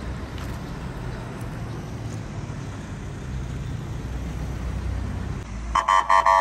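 Low rumble of road traffic on a highway, then near the end a vehicle horn tooting several short times in quick succession, louder than anything else.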